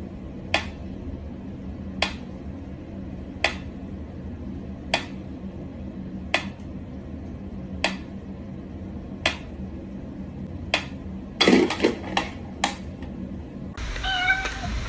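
Pyramid-shaped mechanical metronome ticking slowly, one sharp click about every second and a half. Near the end come several quicker, irregular clicks and knocks.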